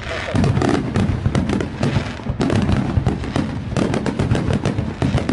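Fireworks display: many aerial shells bursting in quick succession, a dense run of pops and crackles over a continuous low rumble of booms.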